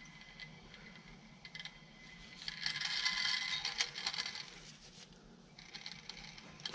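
Front brake rotor and hub being spun by hand on the wheel bearings, a faint scraping and rattling that grows louder for about two seconds midway, then eases off.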